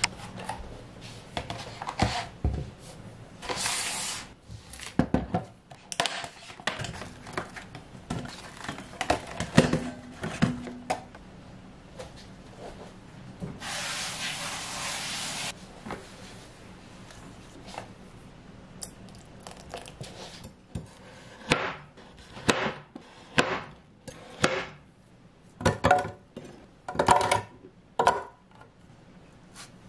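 Kitchen prep handling sounds: scattered knocks, clicks and clatter as a clear plastic blender jar is set down and handled and banana pieces are dropped into it, with two short stretches of steady hiss. The knocks come thicker and louder near the end.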